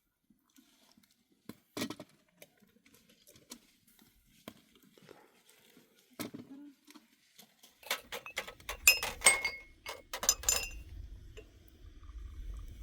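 Scattered small knocks and clicks, then a quick run of ringing clinks of hard objects, like dishes or pots knocking together, from about eight to ten and a half seconds in. A low rumble sets in at the same time and carries on.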